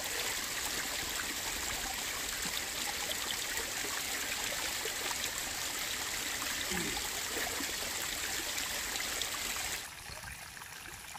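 Shallow rocky mountain creek, water trickling and splashing over stones in a steady rush. About ten seconds in it drops abruptly to a quieter trickle.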